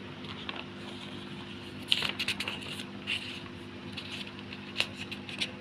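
Paper rustling and crackling in short bursts as a book's page is turned, over a steady low hum.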